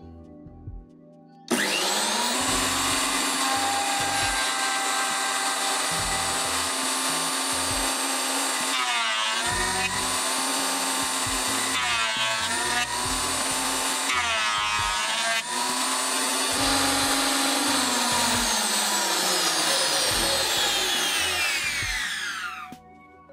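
Makita 2012NB thickness planer running, its motor whine sagging in pitch three times as the board feeds through the cutterhead under load. Near the end it is switched off and spins down to a stop.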